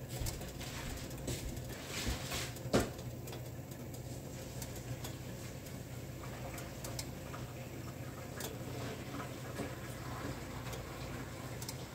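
Light kitchen clatter: a few knocks of cookware in the first three seconds, the loudest about three seconds in, then faint scattered ticks and patter over a steady low hum.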